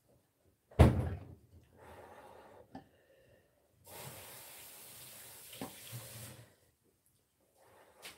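A sharp thump about a second in, then breath blown over a bowl of hot vegetable porridge to cool it: a short faint puff, then a longer one of about two and a half seconds, with light clicks of a spoon against the glass bowl.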